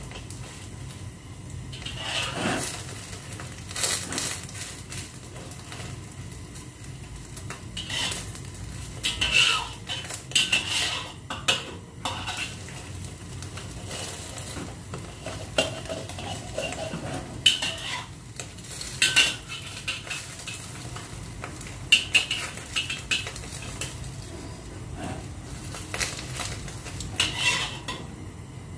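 Metal spatula scraping and clinking against a wok as an egg omelette is turned and pushed around. The strokes come irregularly, a few seconds apart, over a faint sizzle of the egg frying.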